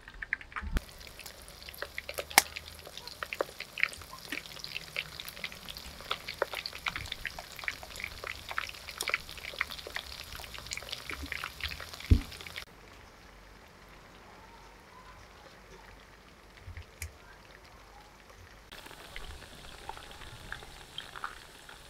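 Battered vegetables deep-frying in hot oil in a wok, a dense crackling sizzle with many small pops. It drops to a quieter hiss for several seconds past the middle and picks up again near the end, with one dull knock just before the quiet stretch.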